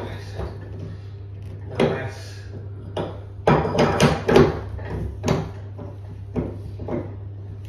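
Knocks and rubbing from handling a bath tap being set in place and adjusted on the bath, loudest in a cluster about three and a half seconds in, over a steady low hum.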